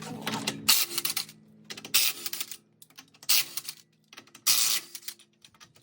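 Impact wrench fired in four short bursts about a second apart, each a rapid hammering clatter over a motor whine, spinning off the wheel's lug nuts.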